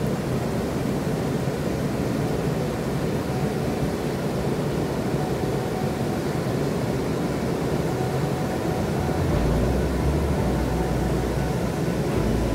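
Steady rush of water pouring over a small waterfall. A low rumble joins about nine seconds in.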